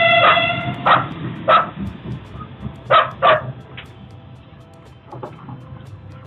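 A dog barking in short single barks, about six in the first four seconds, then fainter. A passing light-rail train rumbles low and fades, with a steady multi-tone horn note at the start. It is picked up through a security camera's microphone, sounding thin with nothing above the midrange.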